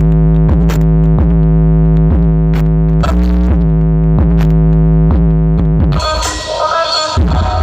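Electronic synthesizer music with a heavy held bass and a repeating note pattern about twice a second, played loud through stacks of sound-system speakers during a sound check. About six seconds in it switches abruptly to a different track.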